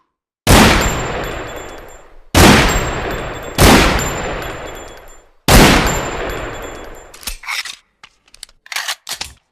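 Desert Eagle pistol firing four shots at uneven intervals, each loud crack followed by a long echoing tail. Near the end come several short metallic clicks and clacks of the pistol's action being handled.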